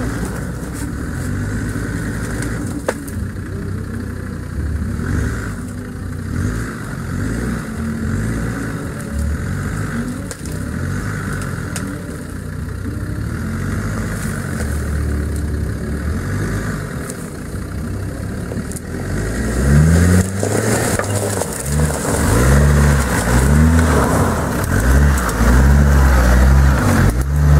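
An off-road 4x4's engine running with its pitch wandering, then revved hard again and again from about two-thirds of the way in, each rev rising and falling in pitch and louder than before.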